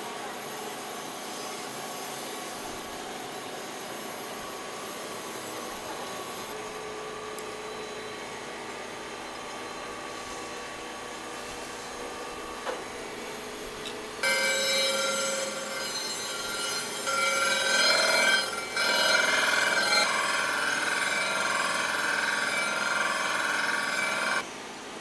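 Steady workshop background noise, then about fourteen seconds in a louder power tool starts with a steady multi-toned whine, runs for about ten seconds and cuts off suddenly.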